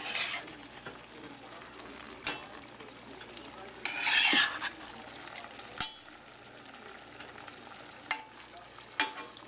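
Metal spatula scraping and knocking against a stainless steel frying pan as tofu is stirred in a shallow sauce over a faint sizzle. There is a longer scrape about four seconds in and four sharp knocks spread through.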